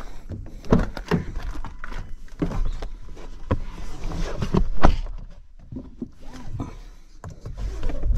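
Getting into a Ford Ranger Raptor pickup: the driver's door opening, clothing and seat rustling as the driver climbs in, and a string of knocks and clicks. The loudest thud, about five seconds in, is the door being shut.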